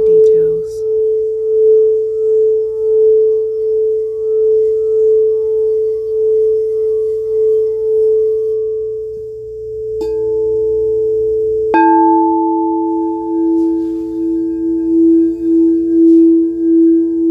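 Crystal singing bowl rubbed with a wand, giving one steady, gently pulsing tone. About ten seconds in a second, lower bowl is struck, and struck again a couple of seconds later. Its tone then rings on, pulsing, together with the first.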